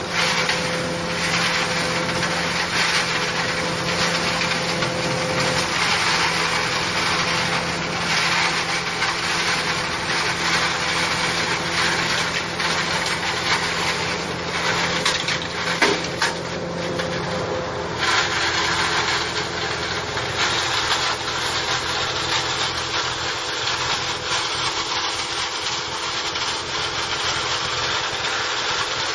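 A tractor engine runs steadily under load, driving a PTO-powered grass and fodder blower. A steady hum sits under a dense rushing noise, and the tone shifts slightly about two-thirds of the way through.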